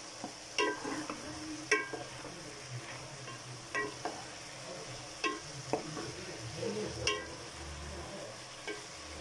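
A spoon stirring keema and fried bitter gourds in hot oil in a pan: a steady sizzle, with the spoon clinking and ringing against the pan about six times, every second or two.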